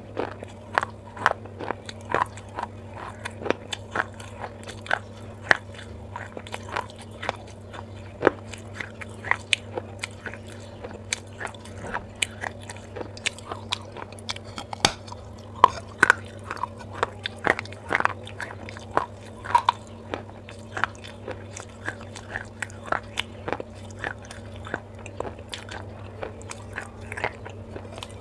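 Close-miked biting and chewing of a baked clay pot: a steady run of sharp, irregular crunches, about one or two a second, as pieces of the clay are bitten off and ground between the teeth.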